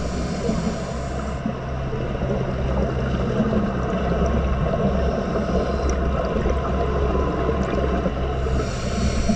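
Muffled underwater sound through a GoPro's waterproof housing on a scuba dive: a steady low rumble, with a hissing rush of scuba regulator exhaust bubbles in the first second and again about eight and a half seconds in.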